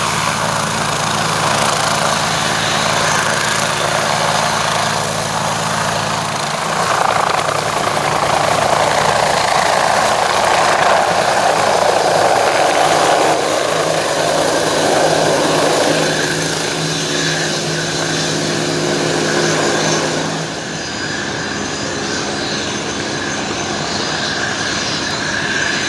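Two turbine helicopters, a Bell AH-1 Cobra and an MBB Bo 105, running their turboshaft engines and rotors as they lift off and fly a display together. There is a steady turbine whine under heavy rotor noise, and the sound changes as they climb and drops a little about 21 seconds in.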